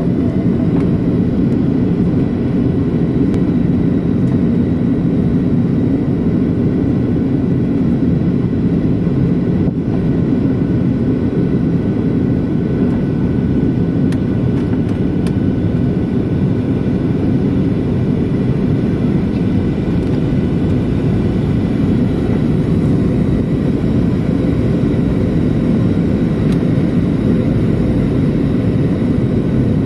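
Steady cabin noise of a Boeing jetliner in flight, heard inside the passenger cabin: the turbofan engines and rushing air make an even low rumble, with faint steady whining tones above it.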